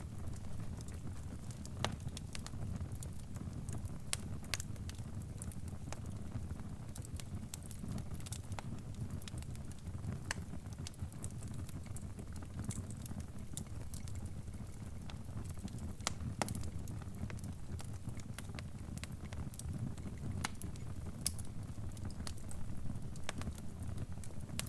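Crackling wood fire: a steady low rumble with irregular sharp pops and snaps scattered throughout.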